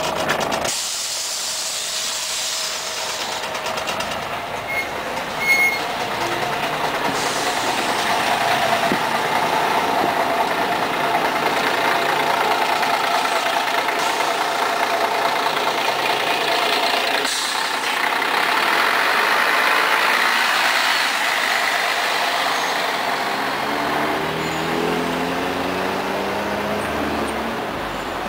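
Diesel city bus running, with a hiss of compressed air in the first seconds and a knock about five seconds in. Near the end a bus engine rises in pitch as it accelerates.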